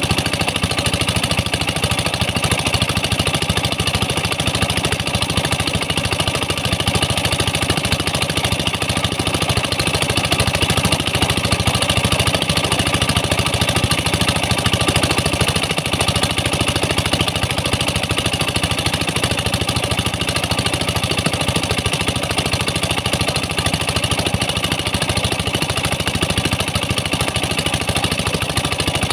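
Engines driving the water-jet and slurry pumps of a small open-pit tin mine, running steadily at an even speed.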